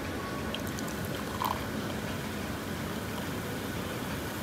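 Cola poured from a can into a glass, fizzing as a head of foam builds, over a steady background hiss.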